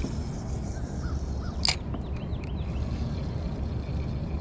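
A short bird call about one and a half seconds in, with a few faint chirps after it, over a steady low rumble.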